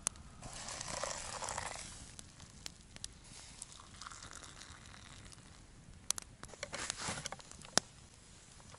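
Small wood campfire crackling, with a hissing rush lasting about a second shortly after the start as the pot is tipped over the fire and steam rises. A few sharp metallic clicks near the end as a tin can is handled and opened.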